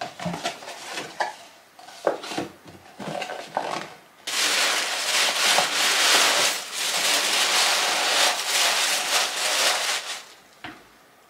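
Hands handling small white paper gift boxes, with light taps and rustles, then about four seconds in, tissue paper crinkling and rustling loudly and continuously for about six seconds as it is pushed into a box, ending with a single soft tap.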